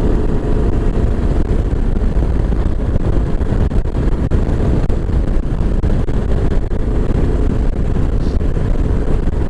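Kawasaki KLR 650's single-cylinder four-stroke engine running steadily under way, heard as a loud, even low rumble.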